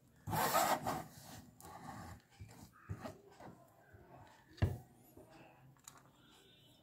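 Stainless steel cleaver blade scraping chopped green chilies across a plastic cutting board and sliding them off onto a steel plate, with the scraping loudest in the first second. Softer scrapes and light clicks follow, with one sharp knock a little past the middle.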